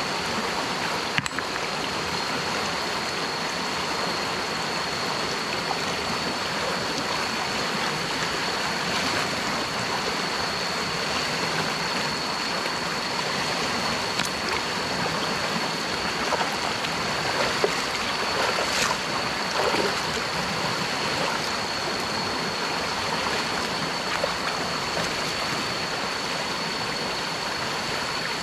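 Stream water flowing steadily, with a thin, high, steady tone throughout and a few brief clicks, one about a second in.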